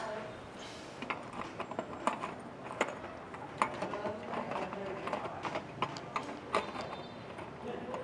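Irregular light clicks and taps of a motorcycle fuel pump assembly being handled and fitted into the fuel tank, with plastic and metal parts knocking together as the pump flange and its wiring connector are set in place.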